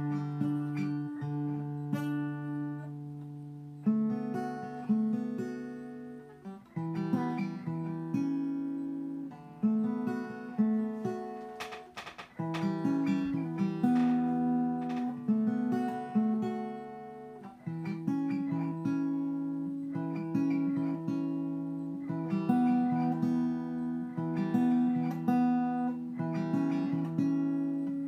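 Acoustic guitar strummed slowly, one chord ringing out after another with a change every second or two, played unhurriedly and without a steady song.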